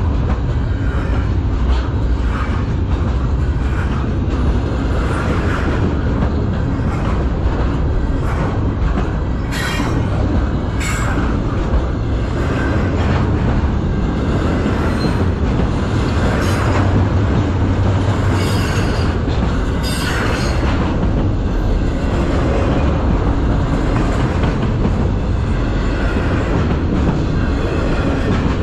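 Double-stack intermodal well cars rolling past with a steady rumble and wheel clatter. Brief high wheel squeals come about ten seconds in, again a second later, and twice more a little after two-thirds of the way through.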